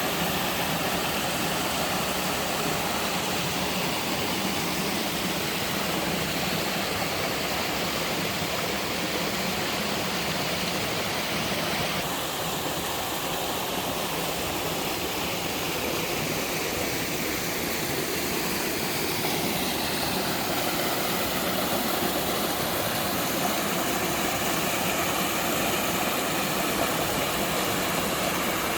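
Mountain-stream waterfall rushing steadily, an even wash of falling and splashing water; its tone shifts slightly about twelve seconds in and again near twenty seconds.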